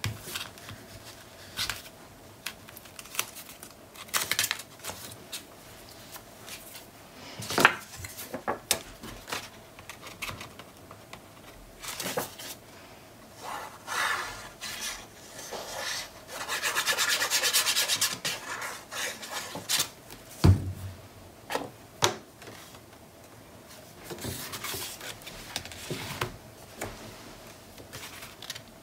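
Paper being handled on a cutting mat: cardstock rubbed and smoothed by hand and slid about, with scattered taps and clicks. A longer stretch of steady rubbing comes about two-thirds of the way through, and a sharp thump a little later.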